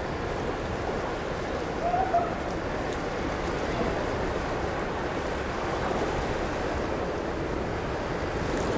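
Steady wind noise on the microphone over the wash of open river water, with a short faint chirp about two seconds in.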